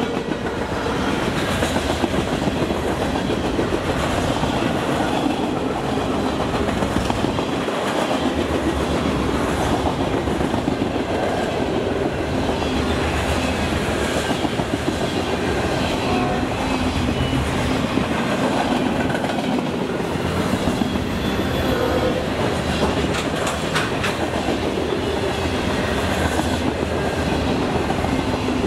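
Freight cars of a mixed manifest train rolling past at speed: a steady rumble of steel wheels on rail, with clickety-clack and rattling from the cars.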